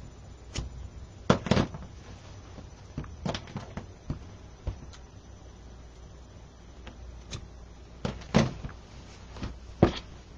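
Scissors snipping through loops of black wreath mesh: short, sharp snips at uneven intervals, about ten in all, some in quick pairs, with the loudest near the end.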